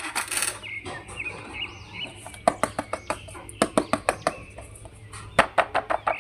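Sharp plastic clicks and taps from plastic action figures or their packaging being handled, coming in quick clusters from about two and a half seconds in. Birds chirp in the background.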